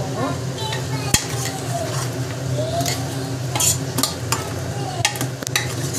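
Metal spoon stirring a thick mutton-and-masala mixture as it sautés in a steel pressure-cooker pot, with sharp clinks and scrapes against the pot's side, over a steady low hum.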